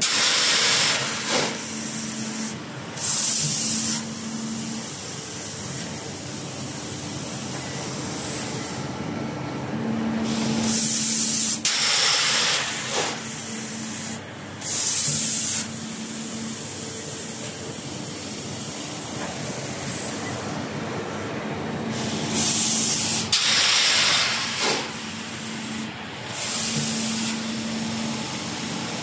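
Automatic vertical sand-molding machine working its cycle: loud bursts of compressed-air hiss, each a second or two long, come several times over a steady machine hum.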